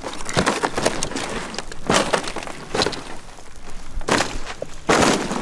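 Irregular cracking and rustling at the smoking wreck of a crashed foam RC airliner, with several louder bursts of noise.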